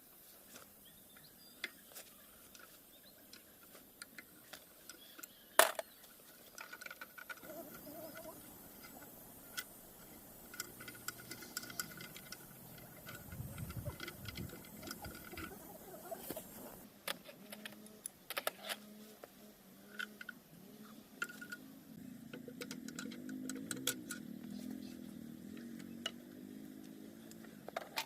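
Irregular light clicks and taps of small hard objects being handled, with one sharper knock about five and a half seconds in.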